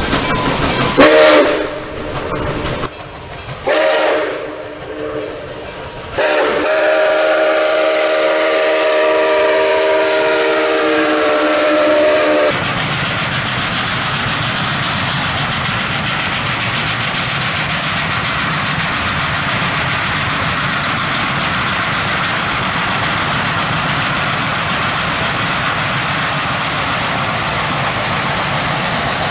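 Steam locomotive whistle of Nickel Plate Road 2-8-4 Berkshire NKP 765: a couple of short blasts, then one long blast of about six seconds that cuts off. After it comes a steady rushing noise.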